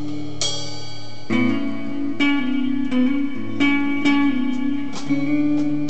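Electric guitar playing chords, struck anew about every half second to second and left to ring between strums.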